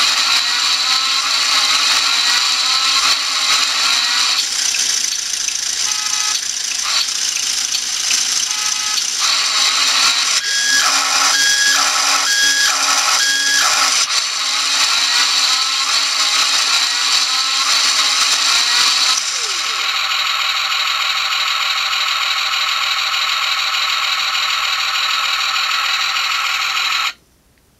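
4WD toy RC rock crawler's electric drive motor and gearboxes whining as the wheels spin freely in the air, the pitch shifting as the throttle changes. Partway through, the drive is pulsed on and off about four times, and near the end it cuts off suddenly.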